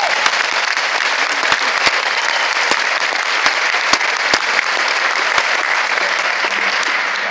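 Audience applauding: loud, dense clapping that holds steady and begins to ease near the end.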